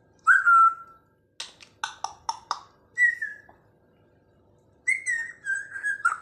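African grey parrot whistling: a short whistle, then a quick run of four or five sharp clicking notes, another brief whistle, and a longer wavering whistle near the end.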